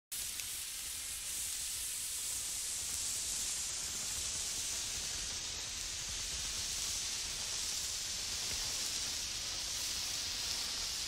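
A steady, even hiss that starts abruptly, with most of its energy high up. It has no distinct impacts or tones.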